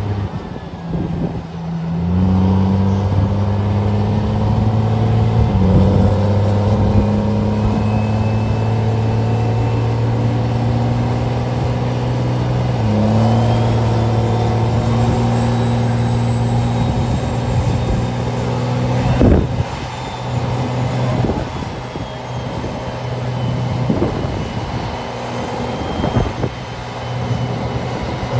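Diesel pickup truck running on a chassis dynamometer, its engine note held steady and stepping up in pitch twice. About two-thirds through the engine drops off and wavers, with a few sharp pops.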